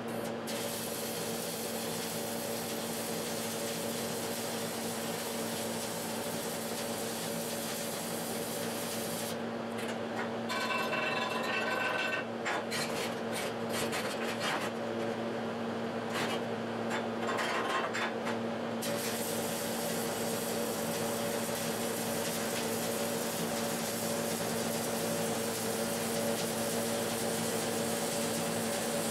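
Stick (SMAW) arc welding with a 7018 electrode on 1/4-inch steel plate: a steady crackling hiss for about the first nine seconds. The arc then stops for slag chipping and wire-brushing, with sharp ringing metal taps and scraping, and the arc crackles again from about nineteen seconds in, over a steady hum.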